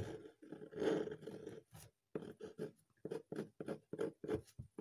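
Ballpoint pen drawing on a sheet of paper laid on a table: a run of short scratchy strokes, about four or five a second from about two seconds in.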